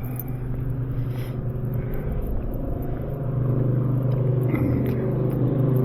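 Car engine and road noise heard from inside a moving vehicle, a steady low hum that grows louder about halfway through as the car picks up speed.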